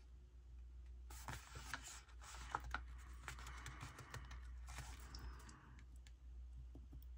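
Faint small clicks and paper rustling as metal tweezers pick dot stickers off a sticker sheet and press them onto a paper planner page, over a low steady hum.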